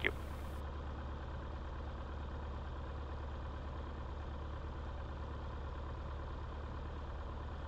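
Grumman AA-5A's four-cylinder Lycoming O-320 engine idling steadily, heard as a low even drone inside the cockpit.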